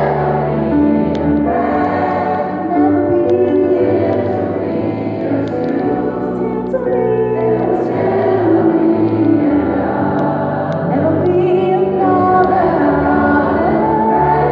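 Gospel choir singing with a female soloist on a microphone.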